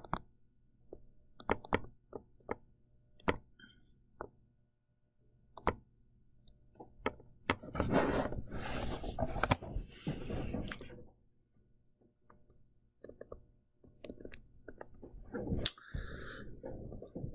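Stylus on a pen tablet while handwriting: scattered light taps, a louder scratchy stretch of a few seconds in the middle, then more taps and short scratches near the end.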